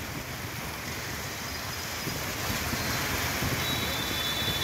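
Traffic on a rain-soaked road: a steady hiss of rain and tyres on wet tarmac with vehicles passing, slowly growing louder. A thin high tone comes in near the end.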